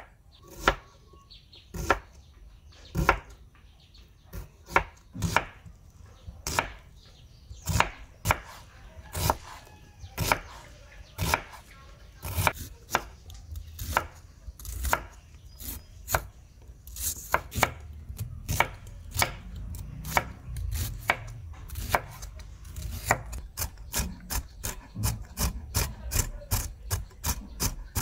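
Kitchen knife slicing red onions on a wooden cutting board, each cut ending in a sharp knock of the blade on the board. The knocks come about once a second at first and speed up to two or three a second in the later part.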